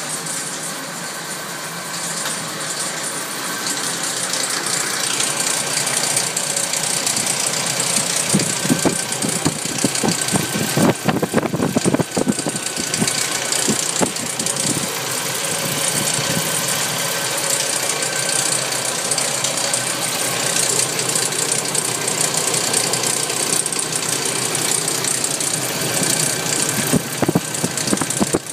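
Nissan 240SX's KA24DE 2.4-litre four-cylinder engine running, with an irregular rattle that comes and goes in clusters of sharp clicks, heaviest about a third of the way in and again near the end. The rattle is the strange noise the owner still cannot trace.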